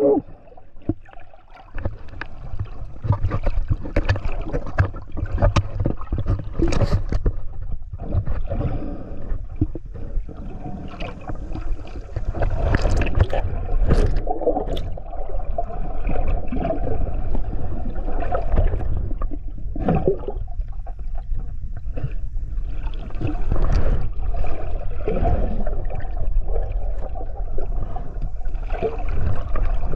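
Muffled underwater water movement heard through a submerged camera, with a low rumble and many scattered clicks and knocks.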